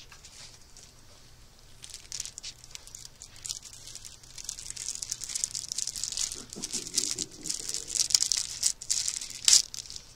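Clear plastic bag crinkling and crackling in the hands as a HEPA filter cartridge is unwrapped from it. The crinkling starts about two seconds in, grows busier, and peaks in one sharp crackle near the end.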